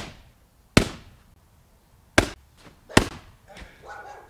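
A bowling ball thrown down again and again onto a laptop computer: four sharp smashing impacts over about three seconds, then a lighter knock near the end.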